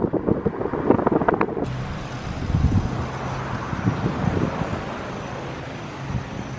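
Wind buffeting the microphone, then a motor vehicle driving along a road with a steady low hum and wind noise. The sound changes abruptly about a second and a half in.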